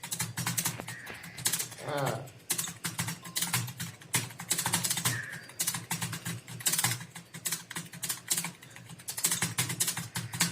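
Fast typing on a computer keyboard during a one-minute typing speed test: a rapid, continuous clatter of keystrokes.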